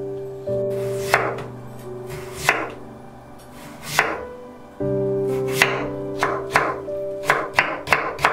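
Kitchen knife cutting a Korean radish on a wooden cutting board. Three slow slicing strokes about a second and a half apart, then quicker chops that speed up to several a second near the end as the slices are cut into matchsticks. Background music plays throughout.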